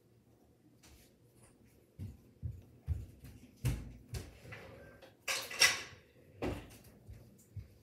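A run of dull knocks and thumps about half a second apart, then a short, louder scraping rustle about five and a half seconds in and one more thump.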